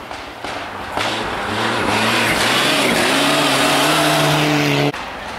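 Rally car engine at high revs as the car approaches and slides through a snowy corner, the engine note building from about a second in with a brief dip near the middle. The sound cuts off abruptly near the end.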